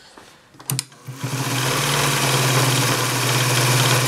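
Adler 189A electric sewing machine starting up about a second in and then running steadily at high speed, stitching with its cam-driven zigzag engaged. A couple of short clicks come just before it starts.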